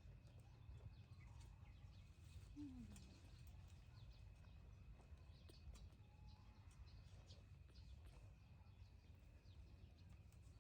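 Near silence: faint outdoor ambience, a low rumble under a steady faint high tone, with scattered faint ticks and chirps and one short falling sound about two and a half seconds in.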